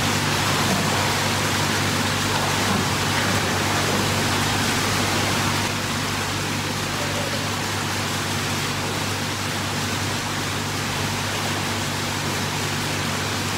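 Steady rushing hiss of pool water circulating and spilling into the overflow edge, with a constant low hum underneath.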